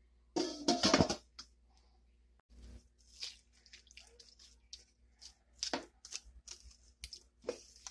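A wooden spoon stirring chopped tomatoes, onions and peppers in a stainless steel pot: wet squishing with short scrapes and clicks against the pot. A loud clatter comes about half a second in.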